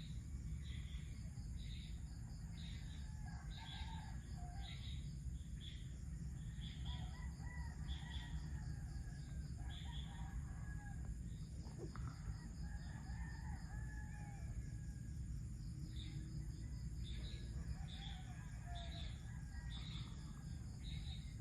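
Roosters crowing repeatedly and faintly, over chirps repeating about twice a second, a steady high insect buzz and a constant low rumble.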